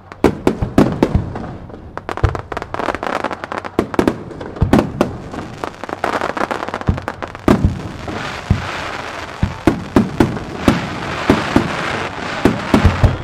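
Aerial fireworks shells bursting in quick succession: a dense run of sharp bangs, several a second, over a continuous hiss.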